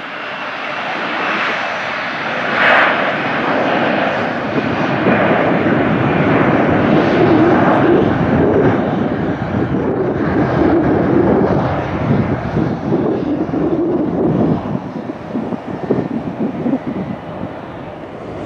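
Jet airliner engines at high power on the runway: a loud roar that builds for several seconds, peaks, then breaks into a rough crackling rumble before easing off. There is a brief sharp sound about three seconds in.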